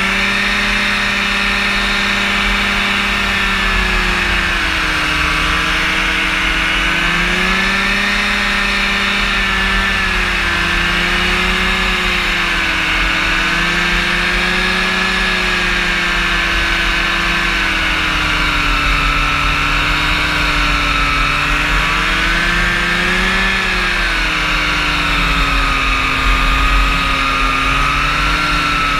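Rotax engine and propeller of a powered parachute droning in flight at steady power, its pitch drifting gently up and down every few seconds.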